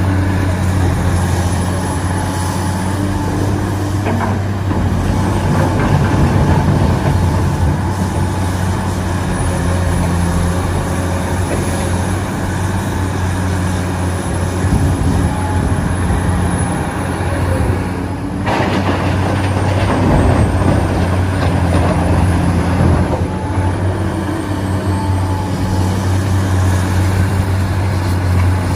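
Radio-controlled excavator running: a steady electric motor hum, with a faint high whine that rises and falls as it works.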